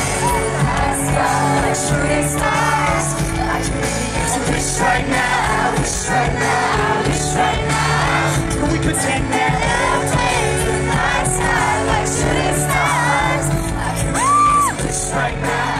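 Live hip-hop concert music played loud over the venue's sound system: a sung chorus over a backing beat, recorded from within the crowd, with the audience singing along and cheering. A short, loud, high note rises and falls near the end.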